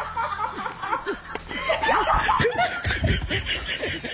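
People laughing in short, overlapping bursts.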